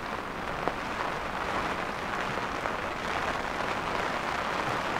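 Rain falling on the sea surface, a steady even hiss.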